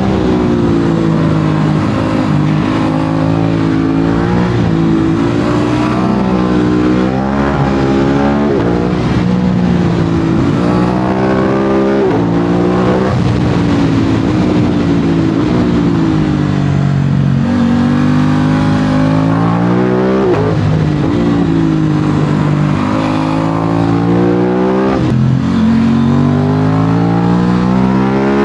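Aprilia RS 660 parallel-twin engine through an SC-Project SC1-R exhaust under riding load. Its pitch climbs under acceleration and drops back when the throttle closes, over and over.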